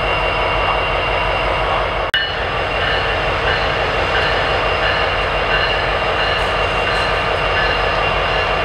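Freight train with a seven-locomotive diesel consist running close by: a loud, steady mass of train noise with several steady high tones above it. The sound cuts out for an instant about two seconds in.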